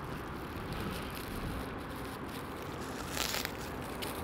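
Steady low outdoor background rumble, with a short rustle about three seconds in.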